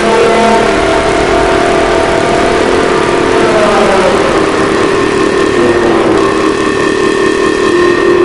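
Loud, harsh emergency alert alarm: several steady droning tones over a heavy hiss, with one tone sliding down in pitch about halfway through.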